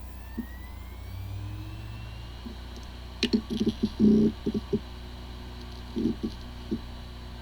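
Hard drive spinning up and running: the spindle motor's whine rises in pitch over the first couple of seconds over a steady low hum. Rapid head-seek clicks follow in a burst about three to five seconds in and a shorter one near six seconds. It sounds like a healthy drive, yet this one has corrupted disk firmware and the computer cannot detect it.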